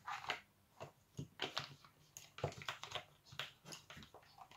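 Lenormand fortune-telling cards being handled on a tabletop: an irregular string of light clicks and taps.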